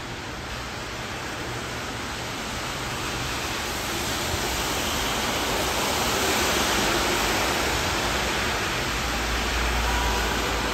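Steady rain and the hiss of car tyres on a wet street, growing louder toward the middle as traffic comes closer.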